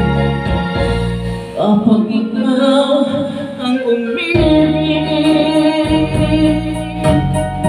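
A man singing a slow ballad into a handheld microphone over a keyboard backing track. His voice comes in about a second and a half in, with long held notes.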